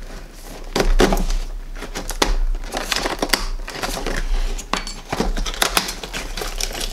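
Small cardboard product box being opened by hand: fingers picking at the seal and pulling the flaps open, with irregular scraping, tapping and crinkling of the packaging.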